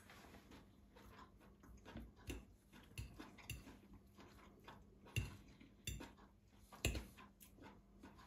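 Cutlery clicking and knocking against a plate or dish, in irregular sharp taps, the loudest three coming about five, six and seven seconds in.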